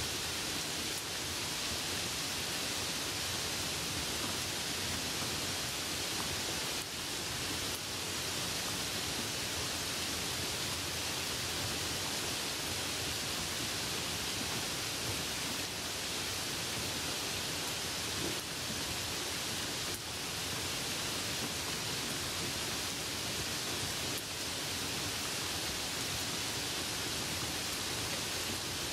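Light-rain sound effect: a steady, even rain hiss.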